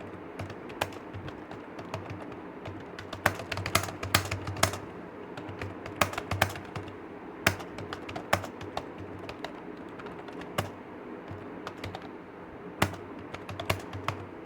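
Typing on a computer keyboard: irregular key clicks, some in quick runs, with louder strokes scattered through, over a steady low hum.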